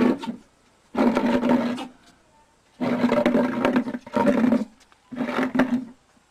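An animal growling: about five loud, low growls, each up to about a second long, with short pauses between.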